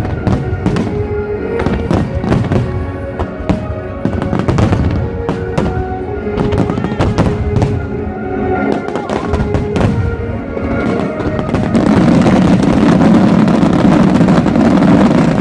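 Fireworks shells bursting in quick succession over music with steady held notes. About twelve seconds in, the bursts merge into a loud, dense, continuous noise.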